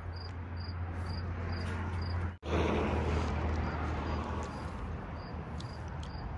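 Outdoor ambience: a steady rumble of distant traffic, with a high, short chirp repeating evenly about twice a second. The sound drops out for an instant about two seconds in, then comes back slightly louder.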